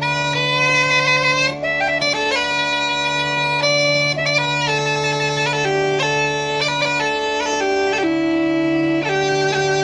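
Bagpipe music: a lively melody played over steady, unbroken drones.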